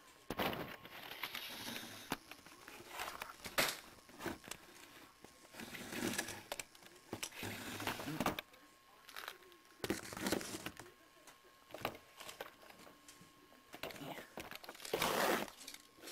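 Irregular crinkling and crackling handling noise in short bursts, with sharp clicks, as peanuts and their container are handled at close range.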